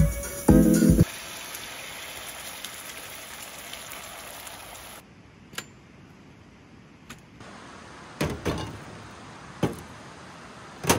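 Background music ends about a second in, then butter sizzles steadily in a frying pan on a gas camping stove. After a few seconds this gives way to quieter outdoor air with a few light knocks of things being set down on a metal table.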